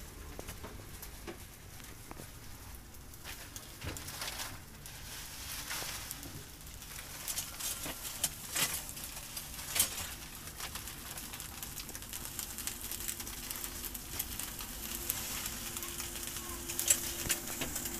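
Round slices of beef frying on a flat griddle, with a steady sizzle and crackle. A few sharp clicks stand out, the loudest near the end.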